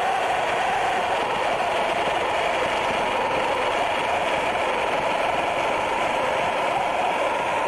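A Lynxx 40-volt 14-inch battery-powered electric chainsaw cutting through a fallen tree limb. Its motor and chain whine steadily, the pitch wavering up and down as the cut loads the chain.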